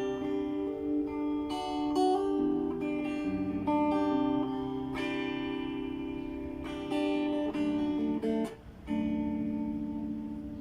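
A Cistyle LP guitar played as a sound test: picked chords and single notes left to ring, changing every second or so. Near the end it drops off briefly, then a new chord rings on.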